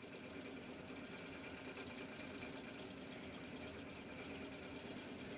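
Faint, steady mechanical hum of a small motor running.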